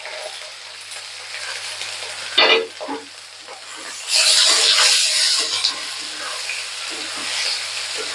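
Chopped onions and green chillies sizzling in hot mustard oil in a metal kadhai, stirred with a metal spatula that scrapes against the pan. The sizzle swells loud about four seconds in as the onions are turned through the oil, then settles to a steady fry.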